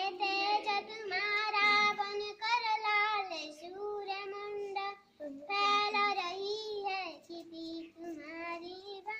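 A young girl singing a Hindi song unaccompanied, her voice holding long steady notes in phrases with brief pauses between them.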